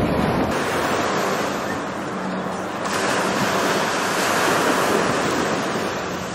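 Small waves breaking and washing up a sandy beach: a steady rush of surf that swells and eases as each wave comes in.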